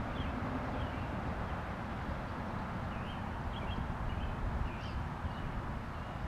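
Small birds chirping in short, scattered calls, a cluster of them about halfway through, over a steady low outdoor rumble.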